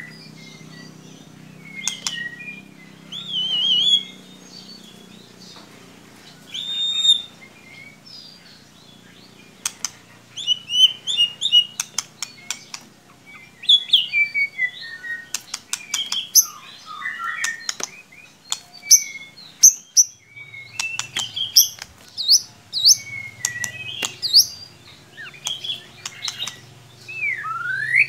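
White-rumped shama singing: a long, varied run of whistled phrases, quick trills, gliding notes and sharp clicking notes in irregular bursts, with short pauses between phrases. A faint low hum sits under it.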